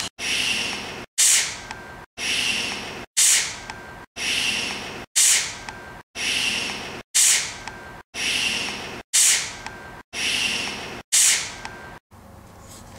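A boy shushing, a hissed "shhh" repeated about a dozen times in quick succession, about one a second, each cut off abruptly as an edited loop. Every other shush starts sharper and hissier. Near the end it gives way to quiet room noise.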